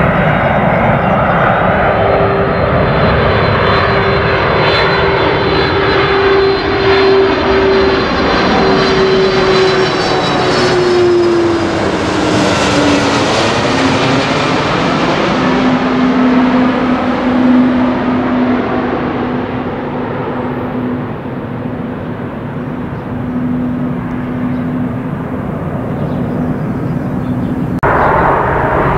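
Airliner on final approach to land, passing low overhead. Its engine noise swells as it nears, and a steady tone drops in pitch as it passes about halfway through, then the noise fades away. The sound changes abruptly near the end.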